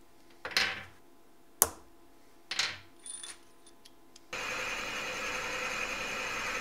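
A few sharp metallic clinks and taps of a steel rod against an old bronze part held in a steel machine vise. About four seconds in they give way to the steady running of a milling machine with a twist drill boring into a brass block.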